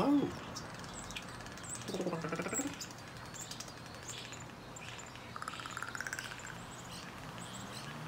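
Crow calling softly: a low, throaty call about two seconds in and a buzzy, rattling call a little before six seconds, with faint chirps of small birds in the background.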